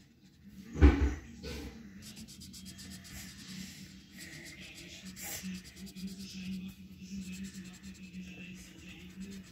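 Crayon scraping and rubbing on paper in quick back-and-forth colouring strokes. A dull thump about a second in is the loudest sound.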